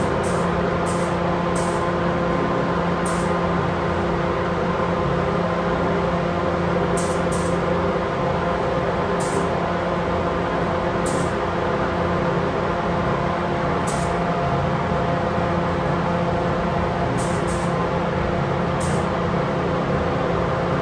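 Steady hum and rushing air of a spray paint booth's ventilation running. It holds at one level throughout, with a few constant hum tones under the rush.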